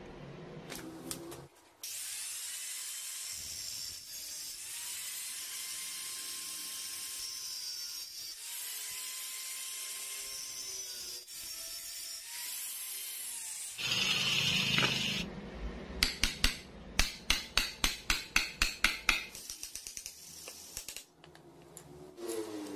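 Electric angle grinder running and cutting through a thin steel rod, its pitch sagging and recovering under load, louder for a moment as it bites near the end of the cut. Then a quick run of about a dozen sharp hammer blows, about three to four a second.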